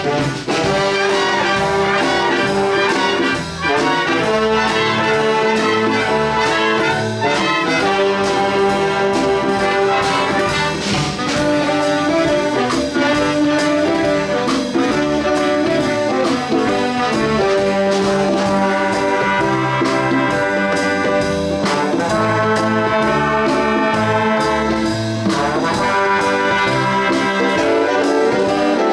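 Big band playing with the brass section, trumpets and trombones, sounding held chords over a steady drum beat.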